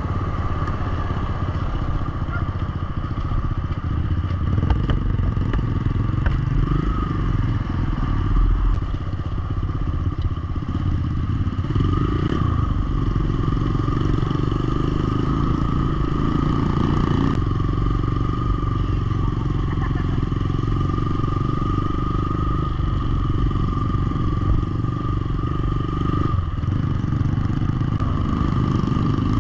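Motorcycle engine running steadily under way, with a low, uneven rumble and a steady whine.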